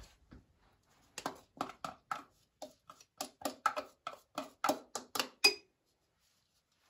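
A spoon scraping and knocking grated orange zest out of a small plastic tub into a stainless steel mixer bowl: a quick run of short scrapes and taps, about three a second, stopping after about four seconds.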